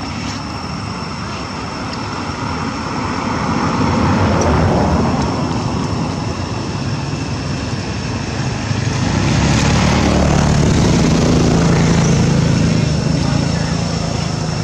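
Engine noise of passing motor vehicles, swelling about four seconds in and again, louder, from about nine to thirteen seconds, over a steady high-pitched whine.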